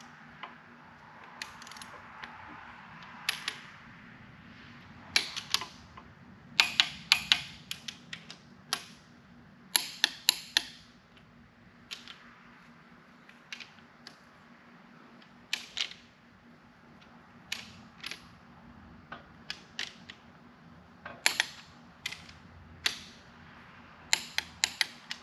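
Click-type torque wrench set to 50 tightening connecting-rod nuts: the ratchet head ticks in short runs, and the wrench gives sharp clicks, many in quick pairs, as it reaches its set torque.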